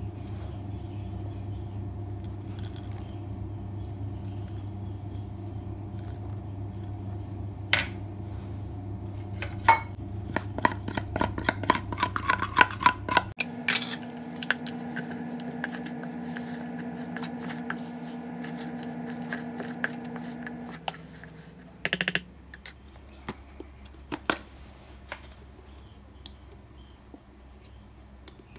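Kitchen utensils clinking and scraping against dishes over a steady hum, with a quick run of clicks from about ten to thirteen seconds in. The hum changes pitch abruptly partway through and fades out about twenty seconds in.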